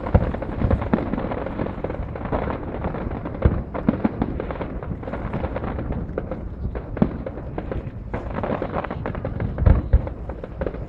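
Fireworks going off: a dense, continuous crackling and popping broken by heavy booms, several of them, the loudest near the start and about ten seconds in.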